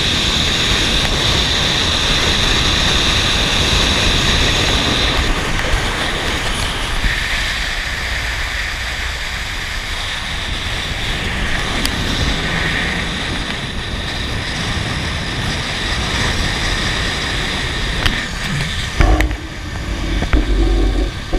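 Zip-line trolley whirring along the steel cable, with wind rushing over the microphone. The high whine drops lower about five seconds in, and a few heavy thumps come near the end.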